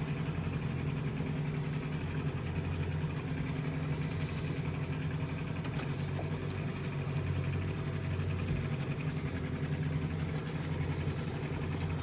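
A small fishing boat's motor idling steadily in its slip, the boat not yet under way.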